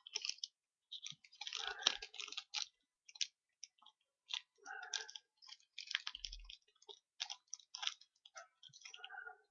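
Plastic packaging of a miniatures set crackling and clicking in irregular bursts as it is handled and pulled open.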